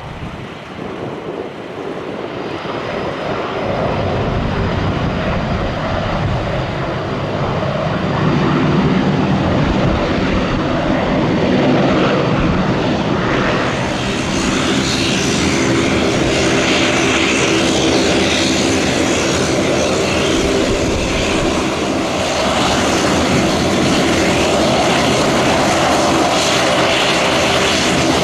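De Havilland Canada Dash 8-400 turboprop taxiing, its engines and propellers running. The sound grows louder over the first several seconds, then holds steady with a layered propeller drone.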